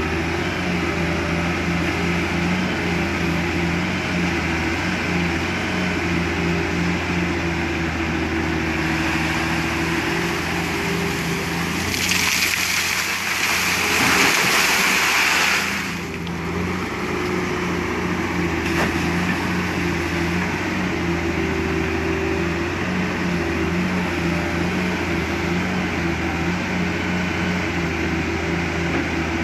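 Heavy diesel engines running steadily. About 12 seconds in, an excavator bucket dumps wet gravel and stones into a steel dump-truck bed, a loud rushing clatter lasting about four seconds.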